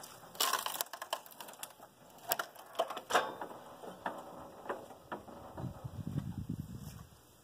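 A wooden shipping crate being taken apart by hand: a series of sharp wooden knocks and clatters as its boards and frame come loose, with a duller, longer noise near the end.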